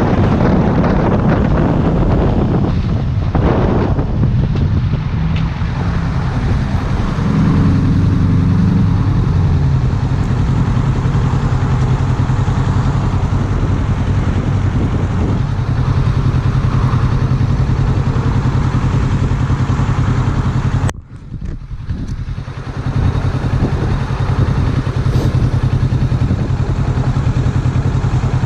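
Motorcycle engine running under way, with wind buffeting the microphone, loudest in the first few seconds. About 21 seconds in the sound drops sharply for a moment, then builds back up.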